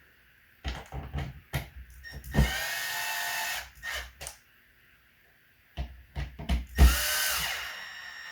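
Power drill driving in the screws that fix a new smoke alarm's mounting base to the electrical box, in two short runs of about a second each, with clicks and knocks of handling between them.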